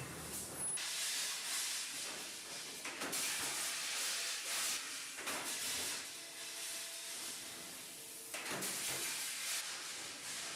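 Hissing noise that swells and fades in waves, with a faint steady hum partway through.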